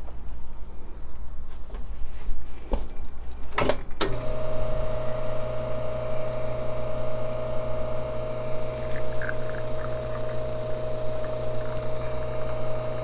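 Espresso machine's pump switching on with a click about four seconds in, then running with a steady hum while an espresso shot is pulled.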